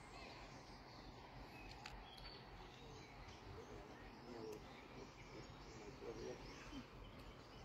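Near silence: faint outdoor background with a few soft clicks.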